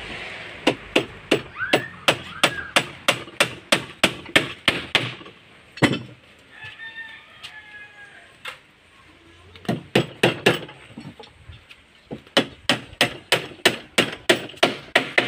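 Hammer driving nails into the wooden ribs and battens of a boat frame: quick blows, about three a second, in runs broken by a pause of a few seconds midway.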